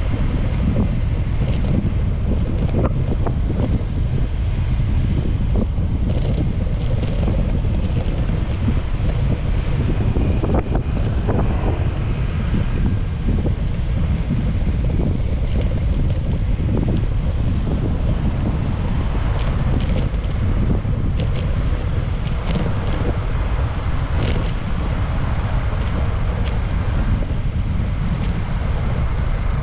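Steady wind rumble on a bicycle-mounted GoPro HERO8's microphone while riding, over street traffic, with scattered light clicks.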